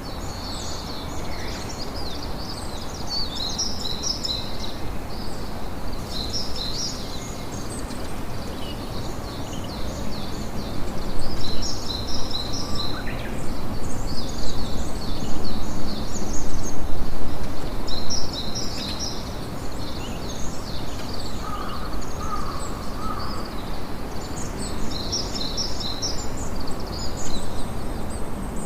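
A campfire crackling steadily, getting louder for several seconds about midway, under a constant chorus of quick, high-pitched chirping.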